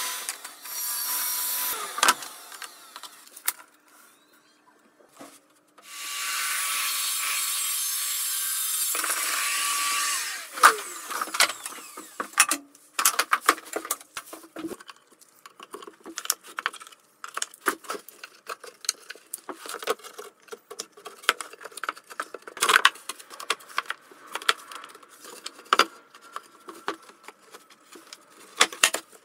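A stationary woodworking power tool runs in two short stretches, the second cutting off and winding down with a falling whine about ten seconds in. Then wooden boards and panels are knocked and slid together in many sharp clacks and taps as the side panels are dry-fitted.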